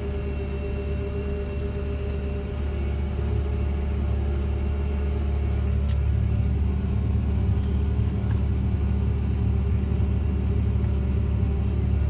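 Fendt 716 Vario tractor's six-cylinder diesel engine and drivetrain heard from inside the cab, running steadily under ploughing load with a low rumble and a steady hum. It gets a little louder three to four seconds in.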